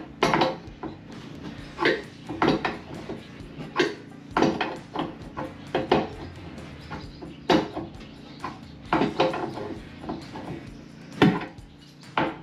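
Irregular metallic knocks and clanks, about one a second, some ringing briefly: a tool striking the old corroded drain and supply fittings under a sink to break them loose.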